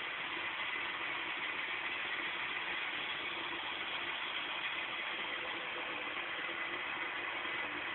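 Sawmill machinery running steadily: a continuous, even mechanical drone with a faint steady hum and no change in speed or load.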